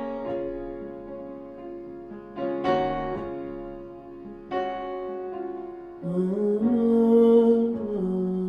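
Upright piano chords played slowly, struck about every two seconds and left to ring and fade. About six seconds in, a wordless sung note slides up and is held for about two seconds over the piano, the loudest moment.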